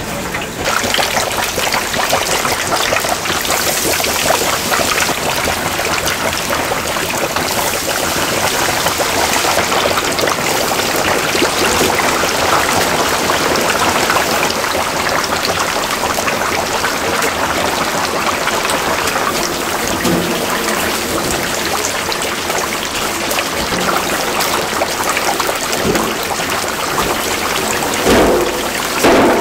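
Water running and splashing steadily, as from a tap into a sink. A few knocks come near the end.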